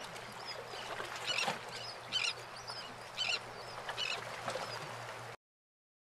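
A bird calling repeatedly: short bursts of high chirps about once a second, with thin rising-and-falling notes between them, over a steady hiss and a faint low hum. The sound cuts off suddenly near the end.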